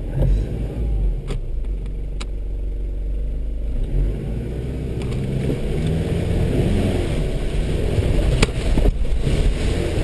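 A vehicle engine running as it drives a rutted, muddy dirt track, with a few sharp knocks and rattles from the body over the ruts. In the second half the engine works harder and the noise grows louder as the vehicle starts to slide in the mud.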